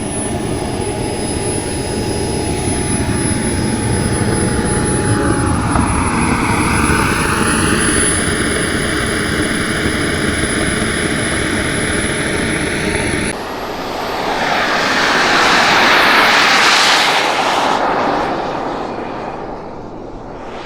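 Hummingbird RC jet's small turbine engine in flight: a steady rushing sound with a thin high whine. After a sudden cut about two-thirds of the way in, a fly-past swells to its loudest about three seconds later and then fades away.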